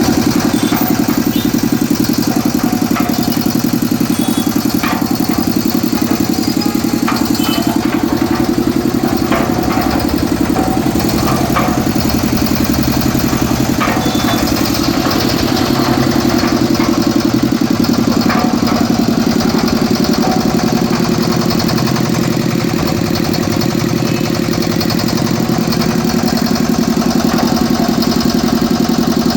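Diesel engine of a concrete mixer running steadily at a constant speed, with a few faint clicks over the even beat of its firing.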